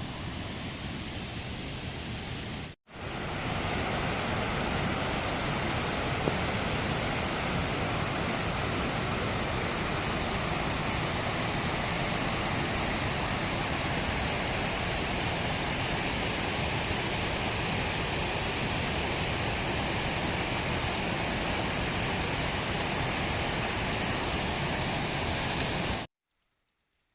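Steady rushing of a fast, rain-swollen river or stream. It breaks off for an instant about three seconds in, comes back a little louder, and stops abruptly shortly before the end.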